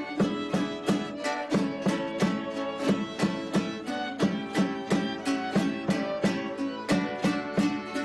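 Folk string music: a violin playing a melody over quick, steady strumming of small guitar-like instruments.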